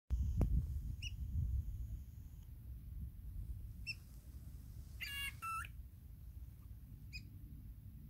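Fork-tailed drongos calling: short metallic notes every few seconds, and a harsher, rasping double call about five seconds in. A low rumble runs underneath, strongest at the start.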